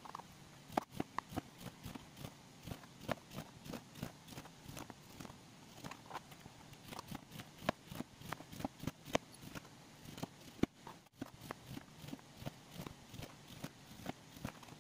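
Kitchen knife slicing through a lemon and tapping a plastic cutting board with each stroke: a run of short, sharp knocks, about three a second.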